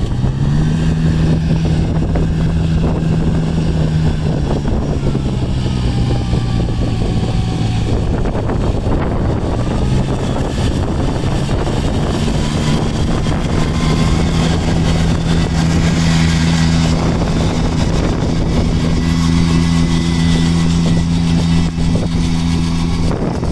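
Ride-on rice transplanter's engine running steadily as the machine plants seedlings in a flooded paddy. The engine picks up just after the start, eases off around eight seconds in, and picks up again a few seconds later.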